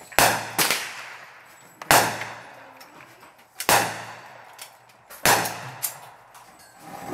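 9mm Glock pistol fired four times, roughly one and three-quarter seconds apart, each sharp shot trailing off in echo. A few fainter cracks fall between them.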